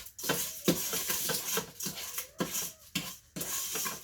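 A spoon stirring and scraping pudding rice coated in melted butter and sugar around the inner pot of an electric pressure cooker, in short, uneven strokes.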